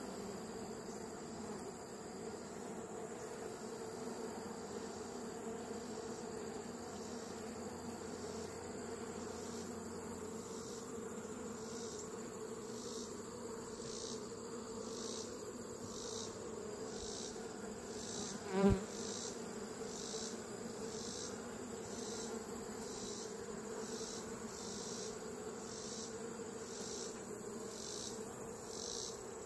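Honeybee colony on an open hive frame humming steadily, the low even buzz of many bees at once. About two-thirds of the way through there is one short, louder buzz.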